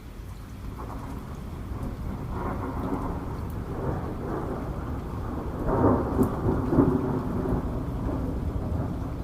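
Rain falling with a long roll of thunder that builds gradually and peaks about six seconds in, then rumbles on more softly.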